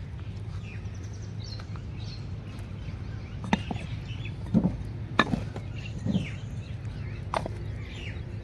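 Clay lids being set down on clay cooking pots: about five light clinks and knocks spread over a few seconds, over a steady low hum.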